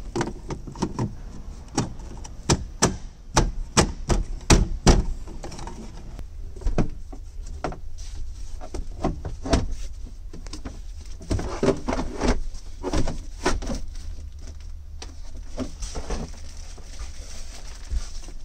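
Irregular clicks, taps and knocks of a Freightliner Cascadia's plastic interior trim panels being handled and pushed into place in the cab, in two busy runs: one in the first five seconds and another past the middle.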